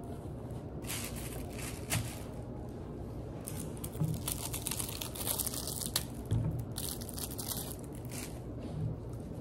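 Thin plastic wrapper crinkling and tearing in several bursts, with a couple of sharp clicks: a drinking straw being peeled off a small milk carton and unwrapped.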